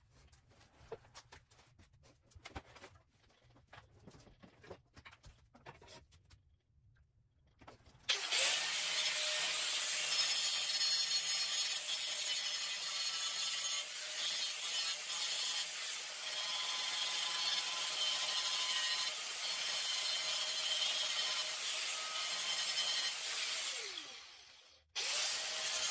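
Angle grinder with a flap disc grinding on the scooter's steel frame tubing. After a few faint handling clicks, it starts about eight seconds in and runs steadily. Near the end it spins down with a falling whine, then is running again right at the end.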